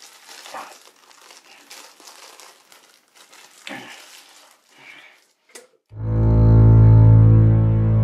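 Soft, irregular rustling and crinkling of a wrapper being handled, then about six seconds in a loud, low, sustained music drone starts suddenly with a deep bass note and the louder tones above it.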